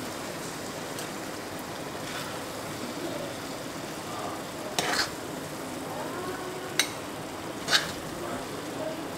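A spatula stirring and turning chicken keema and peas in a hot black wok, over a steady faint sizzle. The spatula knocks sharply against the pan a few times, about five, seven and eight seconds in.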